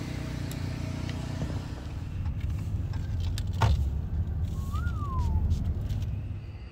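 Low, steady rumble of a motor vehicle's engine, with one sharp click about three and a half seconds in and a short squeak that rises and falls in pitch near five seconds in.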